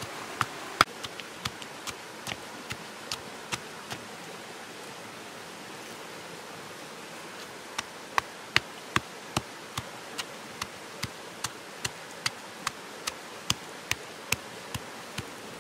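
Stone pestle pounding red chilies and coarse salt in a stone mortar: sharp, regular knocks about two to three a second, in two runs with a pause of a few seconds between them, over a steady hiss.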